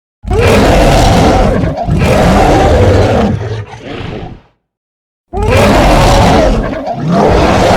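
Rancor monster roar sound effect: two loud roars, the first about four seconds long and trailing off at its end, then after a short silence a second roar that starts near the end.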